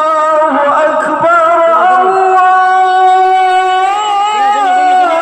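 A voice singing a slow Middle Eastern-style chant, with long held notes that bend and waver.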